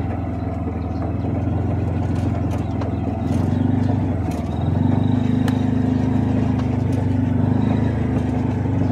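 A vehicle's engine running steadily, with road noise, its tone shifting slightly about halfway through.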